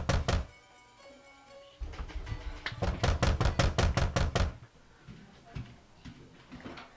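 Rapid, repeated pounding on a door, about six knocks a second: one run ends just after the start and a second runs from about two seconds in to about four and a half seconds. Quiet music plays underneath.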